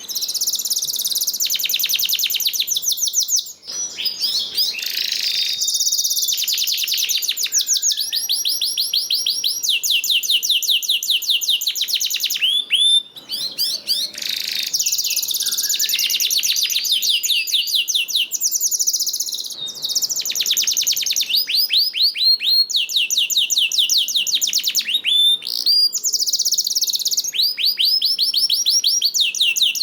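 Domestic canary singing a continuous song of fast, repeated high trills, one run of notes giving way to another every few seconds, with short breaks about 3.5 and 13 seconds in.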